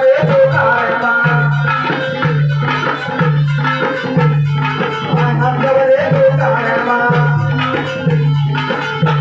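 Indian devotional jagran bhajan music, an instrumental passage with a regular beat about every three-quarters of a second, a held steady tone and rattling percussion.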